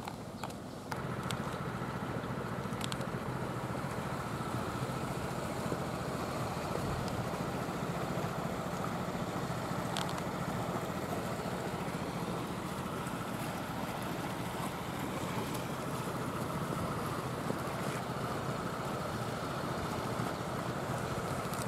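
Steady low engine drone that comes in suddenly about a second in and then holds even, with a few faint ticks over it.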